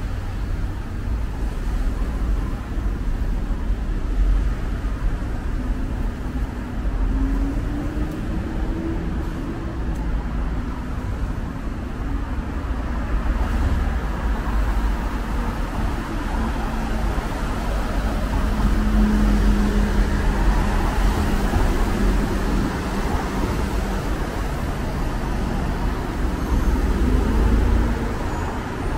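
City street traffic: a continuous low rumble of passing cars and other motor vehicles. An engine tone climbs in pitch about a third of the way in, and another holds steady a little past the middle.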